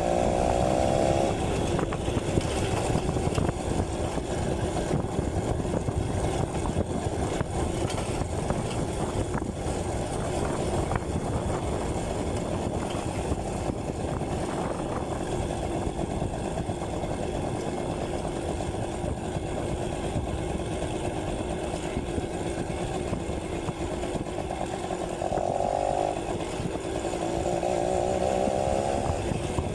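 Yamaha V50's small two-stroke single-cylinder engine running while the motorcycle is ridden, its buzzing note steady for most of the time and rising and falling with the throttle near the start and again near the end, over a steady rush of noise.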